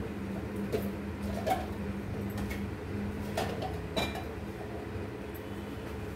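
A pan frying on a gas stove: a steady low hum with a few short sharp clicks and pops scattered through it.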